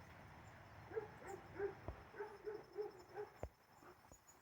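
A dog giving a faint series of short whining yips, about three a second, with a sharp click about three and a half seconds in.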